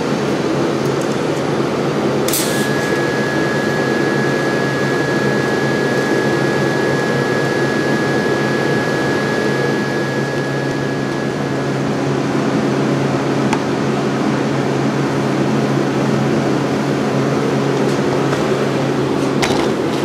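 TIG welding arc burning on a steel tube with the welding machine running: a steady hiss over a low electrical hum. A faint thin high whine comes in a couple of seconds in and stops about halfway.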